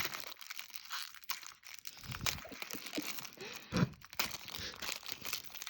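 Foil wrapper of a Pokémon booster pack crinkling and tearing as it is pulled open by hand: an irregular run of crackles and short rips.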